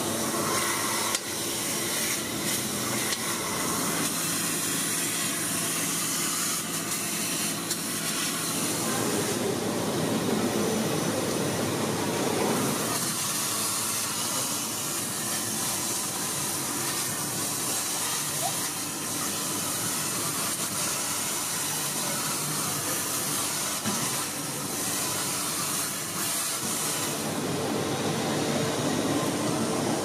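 Kärcher industrial wet-and-dry vacuum cleaner running steadily, its hose nozzle sucking up cooling oil and metal swarf together. A steady rushing noise, its tone shifting for a few seconds about ten seconds in.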